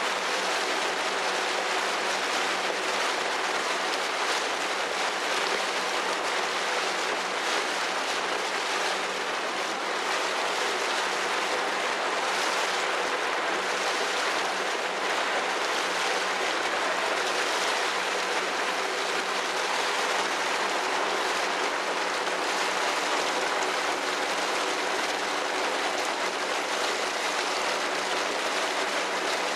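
Steady rush of water with a low, even engine drone from a boat under way.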